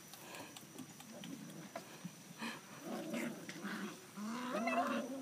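Six-week-old red standard poodle puppies vocalizing in short whines and small growls, more and louder in the second half.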